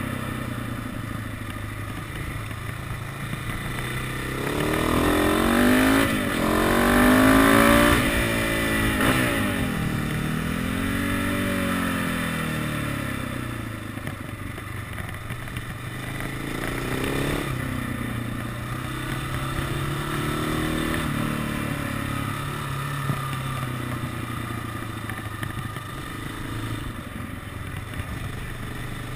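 KTM 690 SMC supermoto's single-cylinder engine heard from on the bike while riding corners. It revs up to its loudest about seven seconds in, drops off, then runs at a steadier lower throttle for the rest, over a constant rush of noise.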